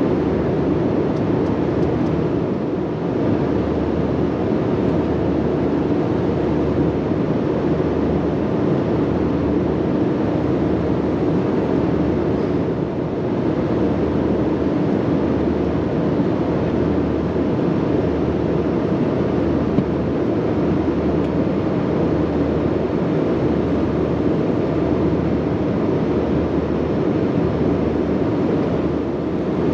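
Steady cabin noise of an Airbus A320-232 at cruise: the even rush of airflow and engines heard from inside the cabin, with a slow, regular throb low down.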